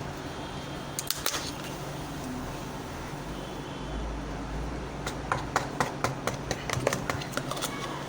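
Small clicks and taps of containers and utensils being handled, a few about a second in and a quicker run of them in the second half, over a steady low hum.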